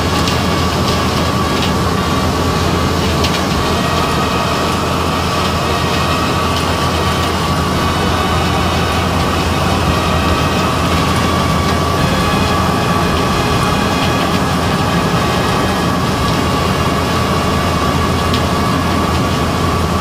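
Sand-processing plant machinery running steadily: an unbroken mechanical din with a low hum and a constant high-pitched whine.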